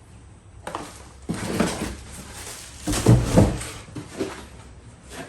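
Rustling and knocking of packaging and mower parts being handled, with a couple of heavier thuds about three seconds in.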